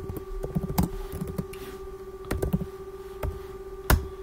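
Typing on a computer keyboard: irregular keystrokes, with one sharper click near the end, over a steady faint hum.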